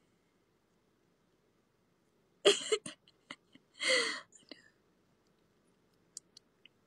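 A woman's stifled, breathy laughter in two short bursts, about two and a half and four seconds in. A few faint clicks come near the end; the rest is near silence.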